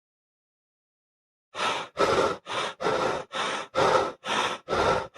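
Sound effect of a person panting hard: a run of quick, even breaths, a little over two a second, starting after about a second and a half of silence.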